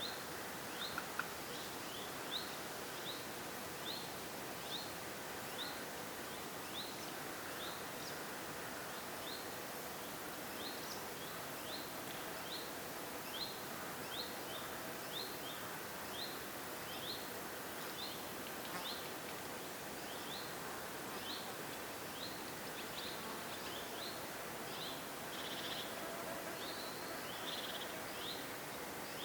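Woodland ambience: a bird repeats a short rising chirp about once a second over a steady background hiss. Other birds call briefly near the end.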